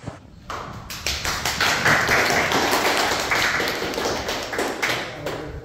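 Applause: a small group clapping by hand, starting about half a second in and dying away shortly before the end.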